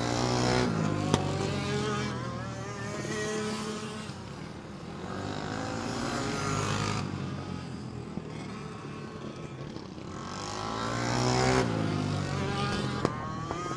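Racing karts' small engines running at speed as the pack laps past. Their pitch and loudness swell and fade with each pass, loudest about a second in and again around eleven to twelve seconds in.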